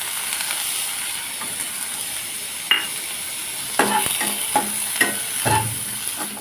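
Chopped tomato sizzling in hot oil in a pan with roasted spices and coconut, the frying hiss starting at once as it goes in. A spoon knocks and scrapes against the pan about six times in the second half as it is stirred.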